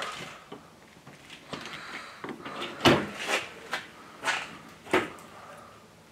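An interior door opened by its round brass knob: the knob and latch rattle, then a few sharp knocks and clicks as the door swings open, the loudest about three seconds in.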